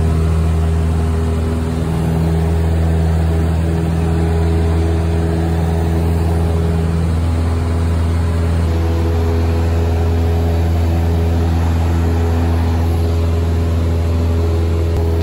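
Cessna 172's piston engine and propeller at takeoff power through the takeoff and initial climb, heard inside the cabin as a steady drone.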